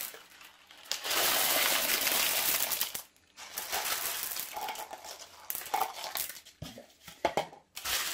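Baking beans poured from a plastic tub into a pastry case lined with baking paper: a dense rattling pour with the paper crinkling, in two spells, then scattered clicks as the beans are pushed about by hand.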